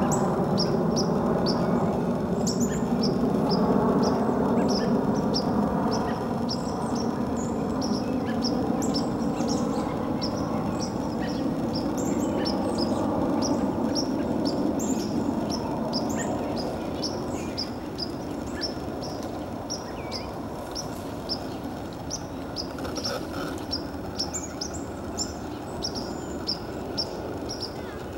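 A small bird's high, short chirp repeated steadily about two to three times a second, over a louder low rumble with slowly falling tones that fades through the second half.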